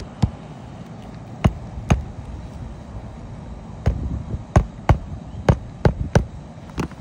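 About ten sharp knocks, a few in the first two seconds and more closely bunched in the second half, from a hammer working under a lifted asphalt shingle to free and pull its roofing nails.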